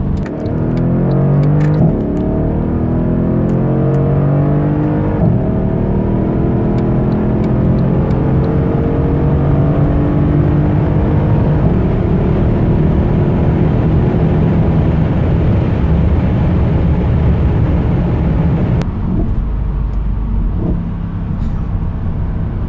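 Mercedes-Benz E63 AMG (W212) 5.5-litre twin-turbo V8 accelerating hard past 200 km/h, heard from inside the cabin. The engine note climbs in pitch through the gears, with upshifts about two and five seconds in, then settles into a steady drone that drops in level about nineteen seconds in.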